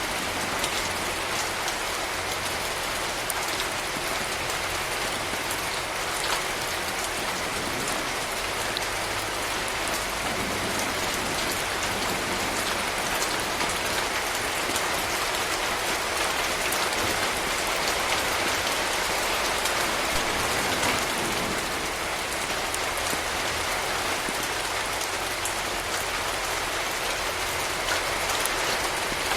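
Steady rain falling: an even hiss with many fine drop ticks, holding level throughout.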